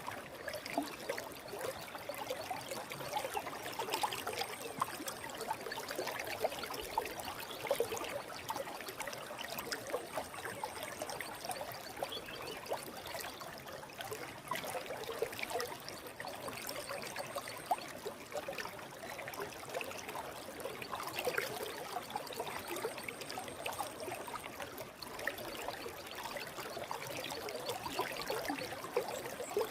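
Forest stream flowing steadily: an even rush of running water full of small splashing flickers.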